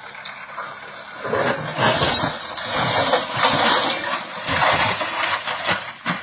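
Heavy machine's engine running, rising in loudness about a second in, with irregular knocks and clatter.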